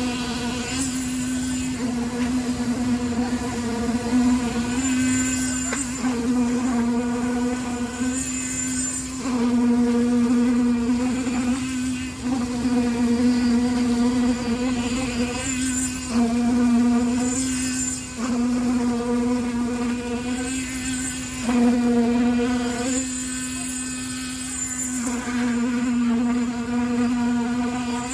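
A small motor running with a steady, high-pitched hum; the tone of its overtones shifts every second or two.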